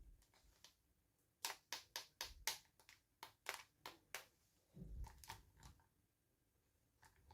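Hands handling small plastic toy packaging: a quick run of about ten light clicks and taps, then a few soft low bumps.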